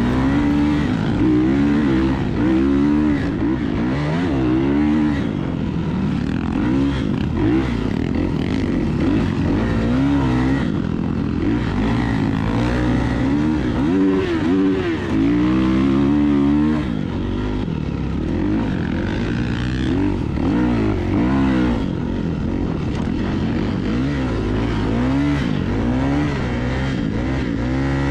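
Off-road vehicle engine revving up and dropping back again and again, loud throughout.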